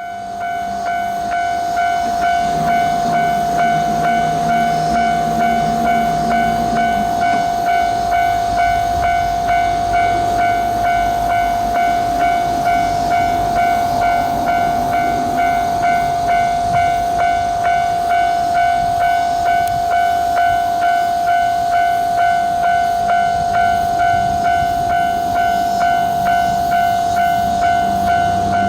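Japanese level-crossing warning bell ringing without a break in its even kan-kan rhythm: one ringing tone struck again and again.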